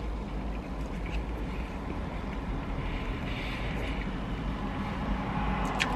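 Low, steady rumble of a vehicle engine running close by, slowly growing louder, with a few faint mouth clicks from chewing close to the microphone.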